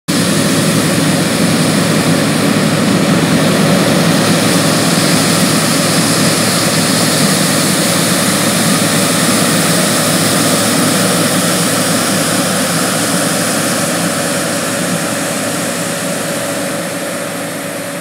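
John Deere 9600 Maximizer combine harvesting wheat with a stripper header: its 7.6-litre diesel engine and threshing machinery running with a steady, loud mechanical drone and a faint steady whine. The sound fades out over the last few seconds.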